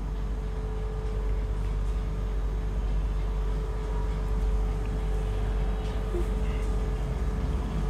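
Steady low rumble with a faint, even hum: background room noise, with no distinct strokes or knocks.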